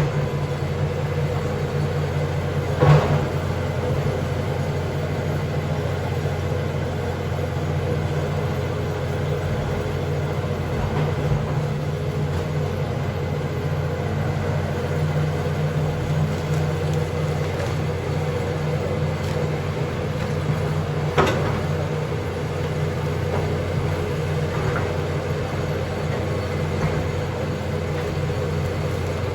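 John Deere backhoe's engine running steadily. Two sharp knocks stand out, one about three seconds in and another about two-thirds of the way through.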